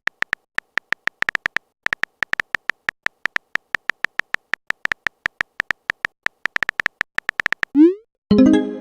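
Chat-story typing sound effect: a fast, uneven run of short, high electronic beeps, each on the same pitch. Near the end comes a quick rising swoop, then a short pitched electronic sound.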